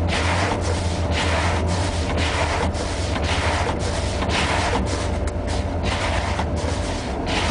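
Windshield wiper blades scraping back and forth over a frosted windshield, about two strokes a second, over the steady low idle of a 1986 Ford F-150's fuel-injected 302 V8 warming up after a cold start.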